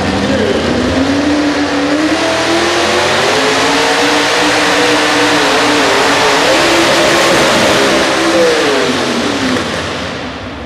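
Pro stock pulling truck's engine revving hard: the pitch climbs over the first few seconds, holds high with some wavering, then falls away near the end.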